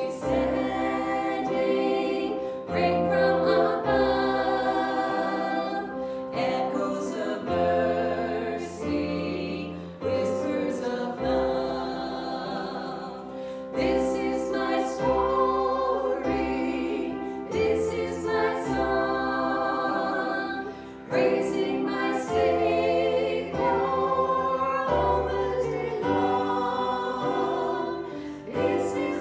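A choir singing a slow hymn in long held notes over a low bass line.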